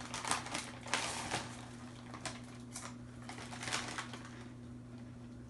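Plastic snack bag crinkling as it is handled and turned over, in several short irregular rustles.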